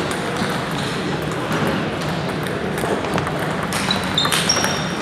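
Table tennis ball clicking between paddles and table during a doubles rally in a large hall. A few short high squeaks come about four seconds in.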